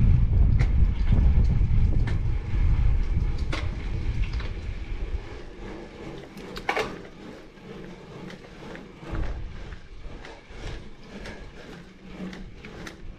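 Wind buffeting the GoPro Max's microphone as the road bike moves at speed, fading over the first half as the bike slows on the steepening climb. It leaves quieter scattered clicks and ticks from the bike, with one sharper click about seven seconds in.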